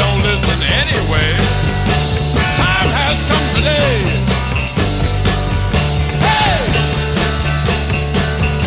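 Rock music with a steady drum beat and a gliding melodic lead.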